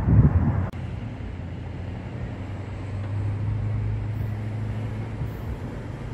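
Wind buffeting the microphone briefly, then a cut to a steady low hum from a distant approaching passenger train, its diesel locomotive droning beneath faint freeway traffic.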